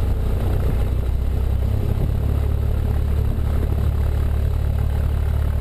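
Cessna 172 Skyhawk's piston engine and propeller running at low taxi power, a steady low drone that shifts slightly in pitch about two seconds in.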